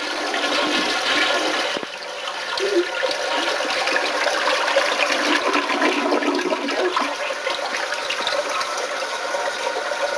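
Toilet flushing: a long, continuous rush of water, with a brief dip about two seconds in.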